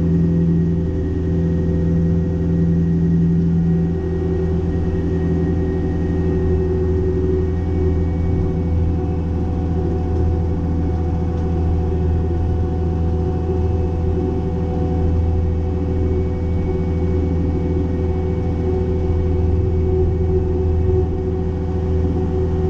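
Cat 262D skid steer's diesel engine running steadily under load, driving a hydraulic brush cutter attachment, with a constant deep drone.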